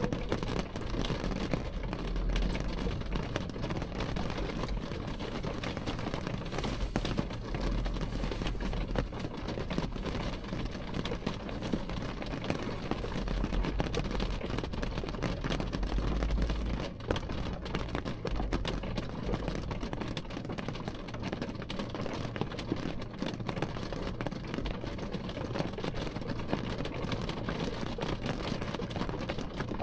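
Steady rain falling on window glass, heard as a dense run of small drop impacts over a low, steady rumble.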